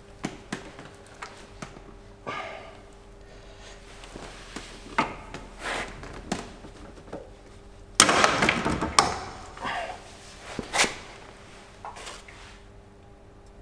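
Irregular metal knocks and clanks of hand tools working on a moped engine as the magneto rotor nut is forced to loosen, with a louder clattering scrape about eight seconds in and another sharp hit shortly after.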